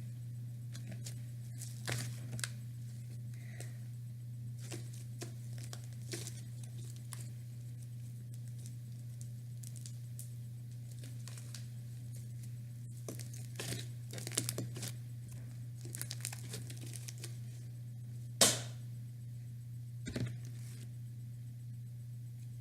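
Homemade slime being handled, stretched and squished, giving scattered sticky crackles and small pops, the loudest about two-thirds of the way through. A steady low hum runs underneath.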